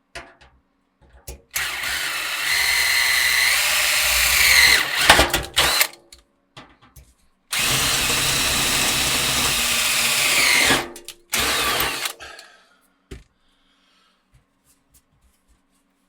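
Power drill with a large bit drilling out rivets in a metal PC case panel: two runs of about four seconds each, the motor pitch dropping near the end of each as the bit bites through, then a short final burst.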